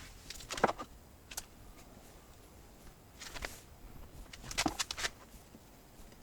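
Light handling noises from glue-up work on a board: a few faint clicks and knocks, a brief scrape a little past three seconds, and a quick cluster of sharper clicks near the end.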